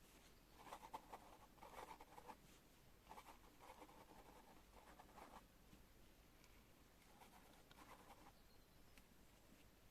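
Pen writing on paper, a soft scratching in three stretches of strokes with short pauses between them.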